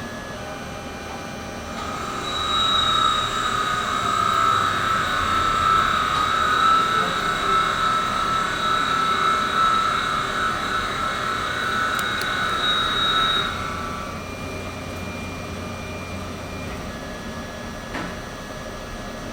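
Tormach lathe making a cut: from about two seconds in until near thirteen and a half seconds the tool is engaged, giving a louder, steady high-pitched whine over the running machine. After that it falls back to the quieter machine hum.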